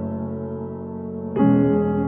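Slow ambient music: soft electric-piano chords left to ring and fade, with a new chord struck about one and a half seconds in.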